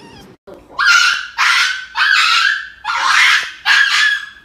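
A dog yelping and screaming in distress while held down for an injection at the vet: five loud, shrill yelps in quick succession, starting about a second in.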